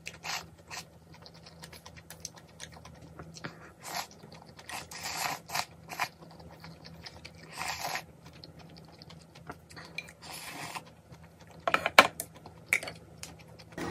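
Close-up eating sounds: short slurps and chewing of spicy noodles in red broth, with sharp clicks of chopsticks and a small bowl. The loudest click comes about twelve seconds in, as the small bowl is set down on the tray.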